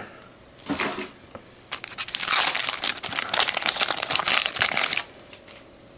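Packaging crinkling and rustling as it is handled and pulled open, starting about two seconds in and stopping sharply about three seconds later.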